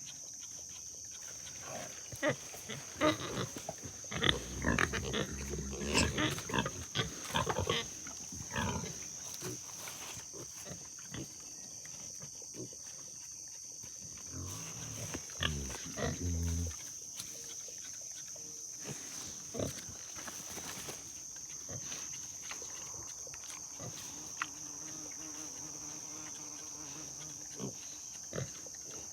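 A sow and her piglets grunting, thickest in the first ten seconds, with another run of low grunts about fifteen seconds in and a few scattered ones after. A steady high-pitched hiss runs underneath.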